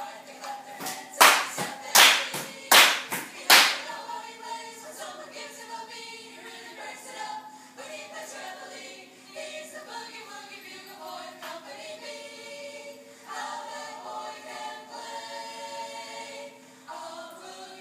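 A group of voices singing a song, with a few loud hand claps in quick succession between about one and four seconds in.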